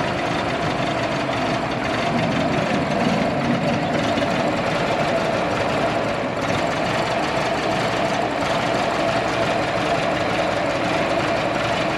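A car engine idling steadily, with a steady whine above the engine noise.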